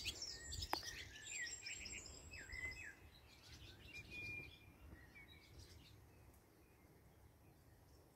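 Faint songbirds singing and chirping outdoors: quick high chirps at first, then short whistled notes that dip in pitch, dying away to near silence in the last few seconds. There is one sharp click under a second in.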